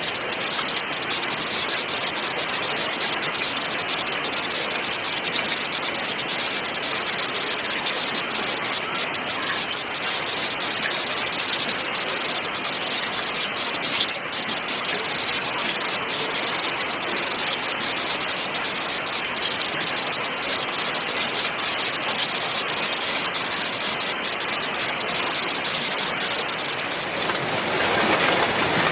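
Heavy rain falling steadily on a corrugated roof, with runoff gushing off the eave in a continuous pour. About a second before the end it grows a little louder and brighter.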